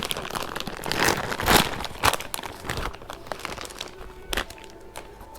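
Packaging crinkling and tearing as a new motorcycle drive chain is unwrapped, in quick rustling bursts that are busiest over the first three seconds and thin out, with one more rustle about four seconds in.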